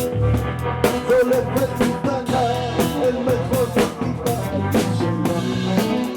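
A rock band playing a song live: drum kit with regular strikes, bass and electric guitar, with a wavering melody line carried over them.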